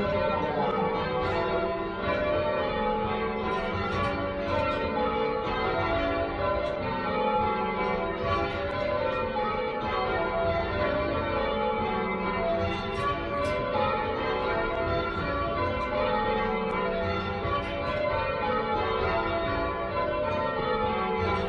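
Church tower bells being rung in changes, stroke after stroke in an unbroken run, their tones overlapping and ringing on.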